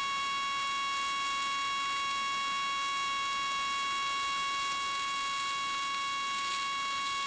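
Northstar 4000 PSI pressure washer running at full pressure as its jet cuts into soil and oak roots: a steady high whine over a constant hiss of spray.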